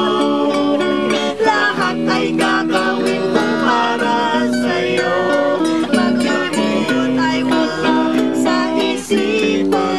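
A red electric guitar and a smaller acoustic string instrument played together in an informal jam, plucked and strummed chords, with a woman singing along.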